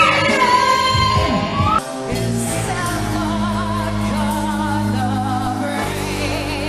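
A woman belting a high held note into a microphone, sliding up at its end, then an abrupt cut about two seconds in to another woman singing live with vibrato over a backing band.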